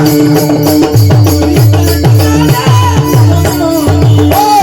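Marathi devotional bhajan music: a steady held drone under a regular beat of low drum strokes that drop in pitch, with jingling percussion on top.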